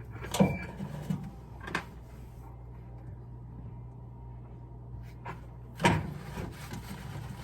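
A few sharp clunks and knocks from handling washing machine parts, the loudest near the end, over a steady low hum.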